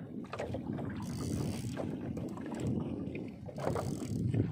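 Wind rumbling on the microphone over water moving around a small wooden fishing boat, with a short hiss about a second in.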